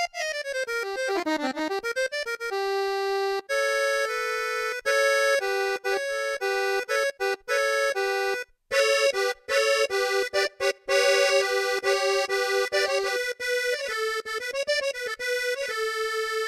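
Korg RK-100S 2 keytar synthesizer played solo on a bright patch: a held note is bent down and back up in pitch in the first two seconds, then a melody of short, repeated notes follows with a couple of brief breaks.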